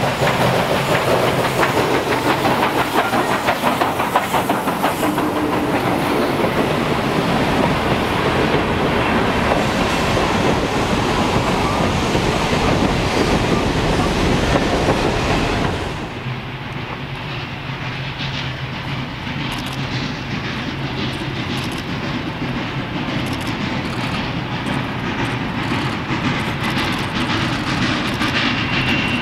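Baldwin 2-6-6-2 Mallet steam locomotive and its train of hopper cars rolling past close by, the wheels clickety-clacking over the rail joints. About sixteen seconds in, the sound drops abruptly to the quieter, steady sound of the train running in the distance, slowly growing louder as it comes closer.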